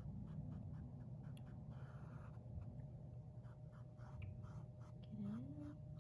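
Paintbrush stroking paint onto a canvas in quick up-and-down strokes, a faint brushing scratch about four times a second over a low steady hum.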